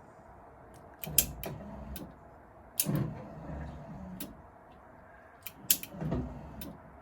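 Triumph TR7 pop-up headlight mechanism working: a run of clicks and clunks with stretches of low motor hum, as the right-hand headlight fails to come up.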